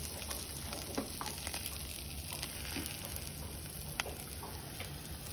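Steaks and vegetable kebabs sizzling on a charcoal grill as oil is squeezed over them, a steady hiss with a few sharp pops, the clearest about a second in and near four seconds.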